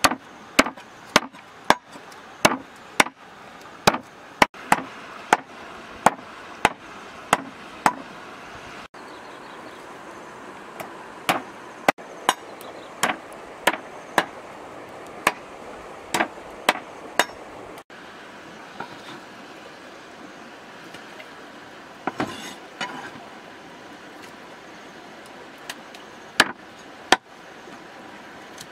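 A cleaver chopping raw chicken on a wooden chopping block: sharp chops about two a second, in runs with short pauses between.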